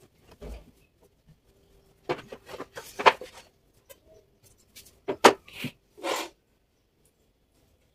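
Wooden pieces knocking and clattering as they are handled and set down: a cluster of irregular knocks about two seconds in, and another about five seconds in.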